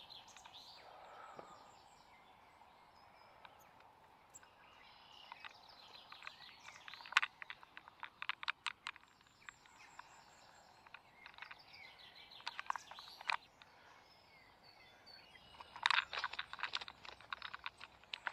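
A small caught fish flopping among leafy weeds on the bank: three spells of quick slapping and rustling, about six seconds in, about twelve seconds in and near the end, with faint bird chirps.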